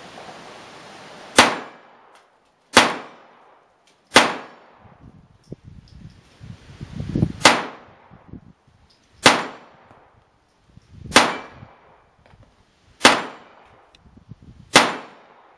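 Eight single .22 LR shots from a Smith & Wesson M&P22 pistol, fired slowly one every one and a half to three seconds, each trailing off in a short echo.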